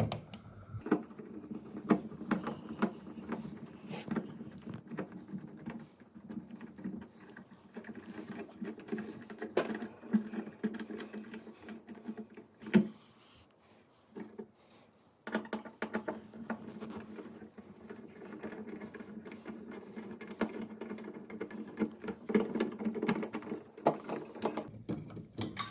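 Small clicks and scrapes of a screwdriver working the terminal screws and wires of a wall switch, over a steady low hum that stops for about two seconds midway.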